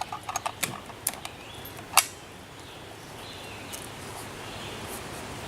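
Small mechanical clicks and rattles of a rifle being handled, then one sharp crack about two seconds in, the loudest thing heard.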